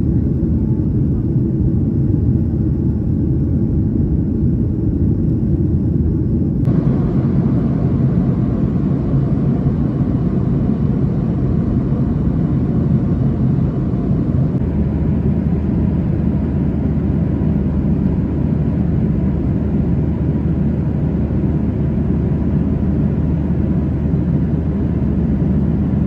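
Steady low rumble of a Boeing 737 airliner in cruise, engine and airflow noise heard inside the passenger cabin. Its tone shifts abruptly about 7 seconds in and again about 15 seconds in.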